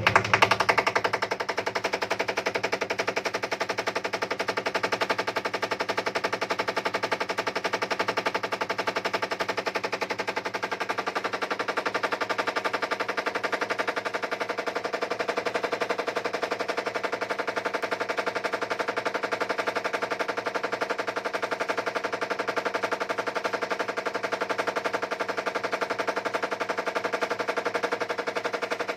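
IFB 10 kg top-load washing machine running with a rapid, continuous rattling knock over the steady hum of its motor. This is the abnormal noise the machine has developed. The rattle sets in abruptly at the start and keeps an even, fast rhythm throughout.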